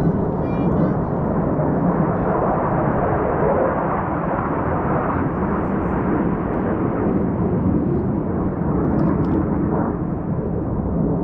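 Jet roar of KAI T-50 aircraft flying an aerobatic display, a steady rumble that swells and eases slightly.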